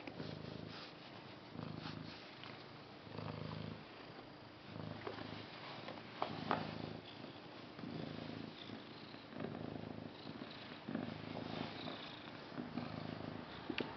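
Domestic cat purring in a low rumble that swells and fades about every second and a half, with each breath in and out, while small rustles and clicks come from its fur being rubbed against the hand and carpet.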